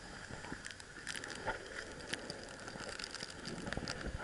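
Skis scraping and shuffling on snow, with many scattered small clicks from the skier's gear and camera being handled.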